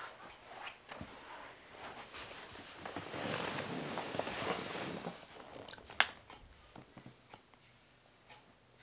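Rustling and shuffling of clothing against a faux-fur throw as a person sits down and settles into a chair, loudest about three to five seconds in. One sharp click about six seconds in.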